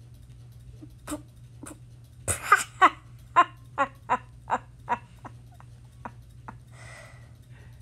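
A person's voice laughing in a quick run of short bursts, about two to three a second, that fade away, over a steady low microphone hum.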